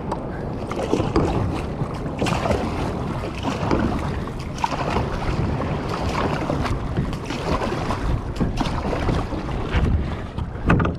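Wind buffeting the microphone over water splashing and slapping against a small craft riding ocean swell, with many short sharp splashes and knocks throughout.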